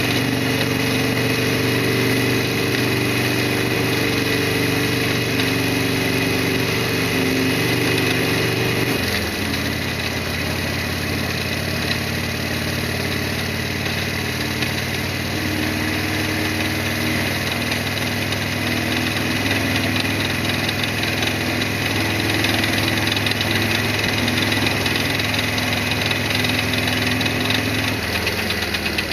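Harley-Davidson Sportster XL1200R's 1200 cc V-twin engine running at a steady pitch, its note changing about nine seconds in and again near the end, over a steady hiss.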